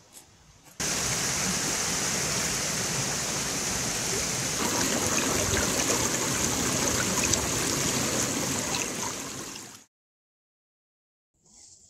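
Flowing stream water rushing steadily; it cuts in abruptly about a second in and fades out near the end.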